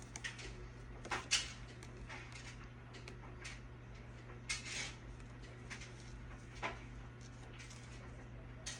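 Small items and packaging being handled: scattered light clicks and taps with a couple of brief rustles, the clearest just over a second in and around the middle, over a faint steady low hum.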